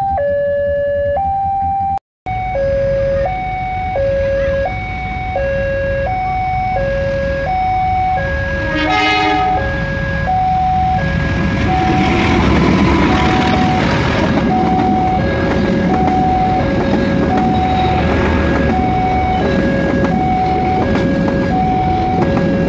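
Railway level-crossing warning alarm sounding a steady two-tone electronic ding-dong, alternating high and low about once a second. About nine seconds in a short horn toot sounds, and then a diesel locomotive and passenger carriages run past over the crossing, the noise of the train growing louder under the alarm.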